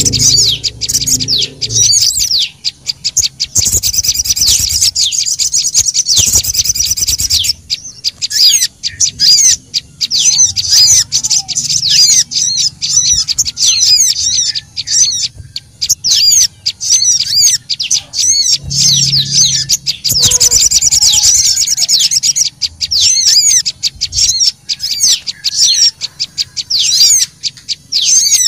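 A lure recording of small birds, sogok ontong (spiderhunter) and prenjak lumut (prinia), calling continuously. Fast, high sweeping chirps alternate with stretches of dense rattling chatter. This is the busy, excited calling used to draw small birds in for trapping.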